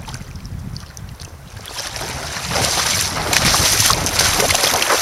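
Wind buffeting the microphone, then water splashing close by from about two seconds in, getting louder.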